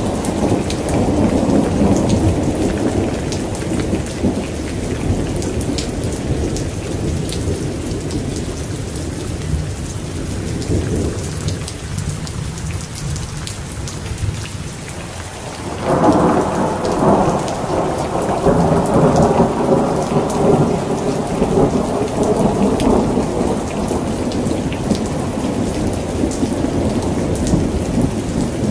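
Heavy rain falling steadily, with thunder rumbling underneath. The rumble dies down about halfway through, then a loud peal of thunder breaks suddenly and rolls on for several seconds before easing.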